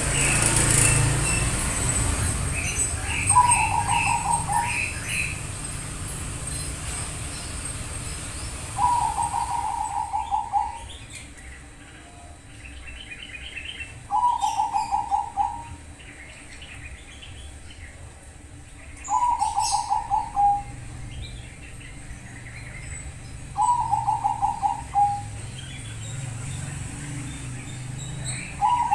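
Perkutut Bangkok (zebra dove) singing its cooing song: a phrase of rapid staccato coo notes lasting about a second and a half, repeated six times about every five seconds.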